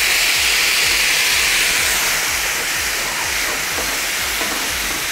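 White wine hissing and sizzling as it boils off in a very hot cast-iron pan of toasting risotto rice, deglazing the pan. The hiss slowly dies down as the liquid cooks away, and a wooden spoon stirs the rice near the end.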